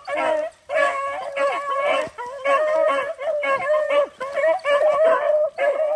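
A pack of beagles baying in quick, overlapping calls with only brief breaks, the hounds giving voice as they run a rabbit's scent trail.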